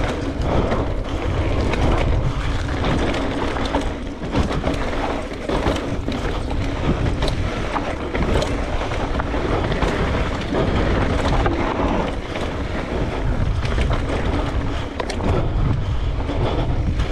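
Mountain bike descending a dirt singletrack, heard from a helmet camera: wind buffeting the microphone over the rush of tyres on dirt, with frequent short clicks and knocks as the bike rattles over bumps.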